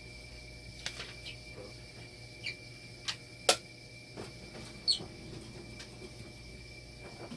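Scattered light clicks and taps of small objects being handled, about ten over several seconds, the loudest and sharpest about three and a half seconds in. A steady high whine and a low hum run underneath.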